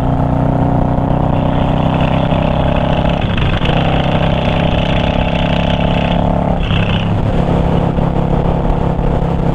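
Yamaha V-Star 650's air-cooled V-twin engine running steadily at road speed, heard from the rider's seat with wind rushing over the microphone. The engine note breaks briefly twice, about three and a half and seven seconds in.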